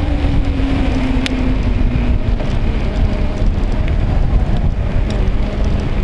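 Wind noise and a heavy low rumble on the microphone of a handlebar-mounted camcorder on a moving bicycle, with a faint low hum that slowly falls in pitch and a single sharp click a little over a second in.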